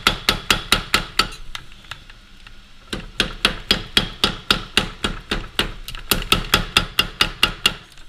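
Power hammer striking a red-hot steel knife blank between its dies, about four to five blows a second. There are two runs of blows with a pause of about a second and a half between them.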